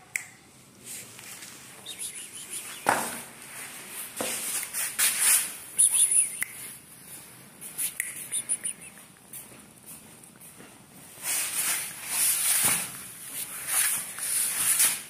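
Black plastic bag rustling and crinkling in irregular bursts as a kitten eats spaghetti from it, loudest around a third of the way in and near the end.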